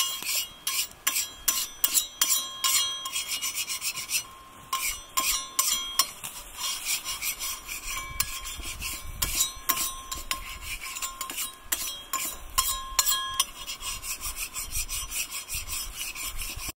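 A steel spatula scraping over a Yokozawa Teppan iron griddle plate in quick, uneven strokes: metal rasping on metal with a light ring. There is a brief lull about four seconds in.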